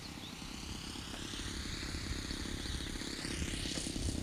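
Radio-controlled model airplane's motor running as the plane comes in to land, growing louder as it nears. Its whine wavers and then rises sharply in pitch about three and a half seconds in.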